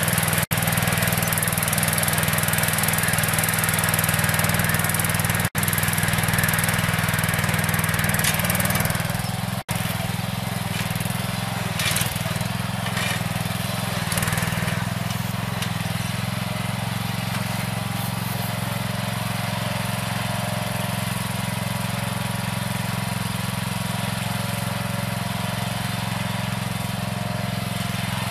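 DAKR Panter FD-5 tractor engine running steadily while ploughing, with a strong hiss over it that eases after about nine seconds. The sound breaks off for an instant three times in the first ten seconds.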